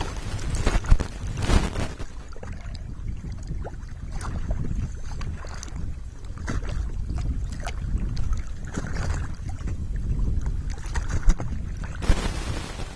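Sea water sloshing against a camera housing bobbing at the surface. There is a steady low rumble, with sharp splashes about a second in, again a moment later, and once near the end, then a rushing hiss of water washing over it.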